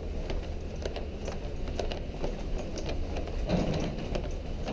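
Footsteps of people walking, about two a second, over a low steady rumble.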